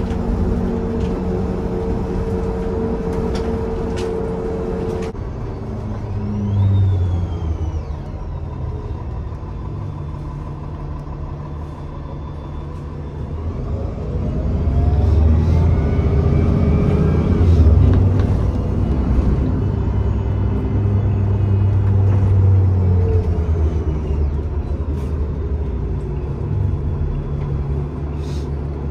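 Engine and running noise inside a city transit bus: a steady low rumble and hum. About 14 s in it grows louder, with a rising whine, as the bus picks up speed, then eases off.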